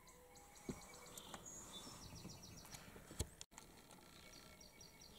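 Faint field ambience with small birds chirping in quick high series, and two sharp knocks from the camera being handled, the louder about three seconds in.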